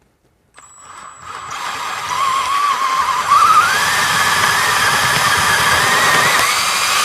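Electric drill boring a 1-inch spade bit into the wood of a door edge: the motor starts about half a second in and its whine climbs in pitch about three seconds in, then runs steadily under load.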